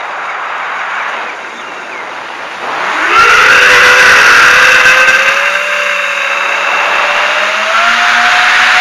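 FPV quadcopter's electric motors and propellers: low throttle for about three seconds while the drone flips, then the throttle comes up sharply to a loud, steady whine that slowly climbs in pitch.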